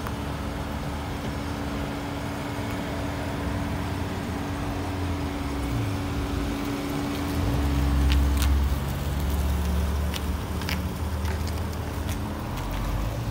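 Infiniti Q50's 3.7-litre V6 engine running at low speed as the car drives off slowly, its note swelling a little past halfway through. A few light ticks come in near the end.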